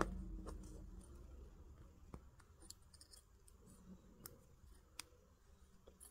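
Faint, scattered small clicks and ticks of fine copper weaving wire being wrapped by hand around a thicker copper wire, with the wire ends tapping and scraping against each other.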